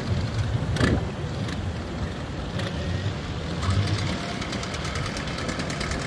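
Boat engine running steadily at low speed, with a sharp knock about a second in.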